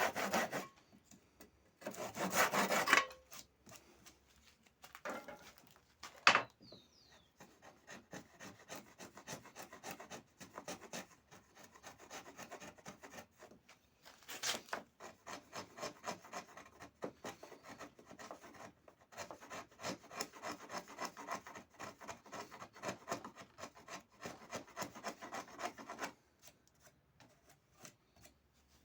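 Wood being abraded by hand with quick, repeated back-and-forth rubbing strokes. There is a louder scraping stretch about two seconds in and a sharp knock about six seconds in; the strokes stop near the end.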